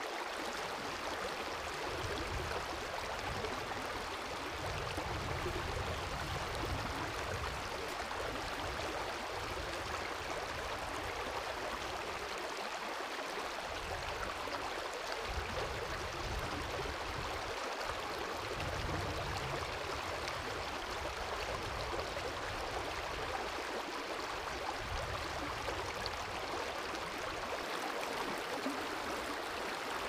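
Shallow river running over gravel and stones, a steady rushing ripple, with a low rumble underneath that swells and fades every few seconds.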